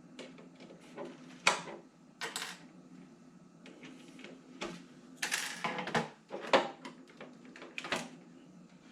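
Irregular clicks and clatter of small hard objects being handled and set down on a table, a few sharp knocks a second apart.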